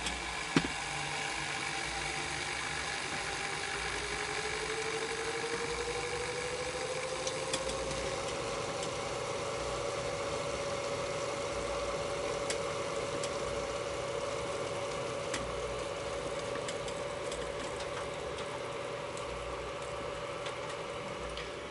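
Antec Kühler H2O 920 liquid-cooler pump running with the PC just switched on, a steady washing noise that is normal for this pump. A whine in it rises in pitch over about the first eight seconds, then holds steady. There is a click about half a second in.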